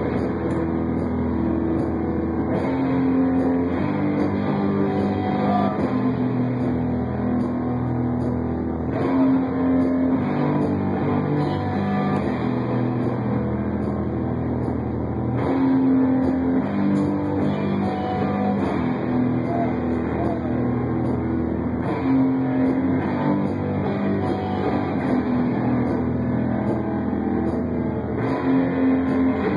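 Live improvised rock music played through amplifiers, with an electric bass prominent, holding long low notes that change every second or two.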